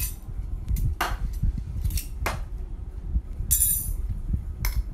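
Sharp, irregular metal clinks and knocks of a metal fork against a kitchen tap, as the tap is tapped and worked to loosen its stuck valve, over low handling rumble.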